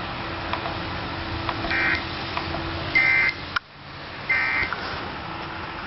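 Emergency Alert System end-of-message data signal on a TV broadcast: three short, screechy digital bursts about a second apart, marking the end of the alert.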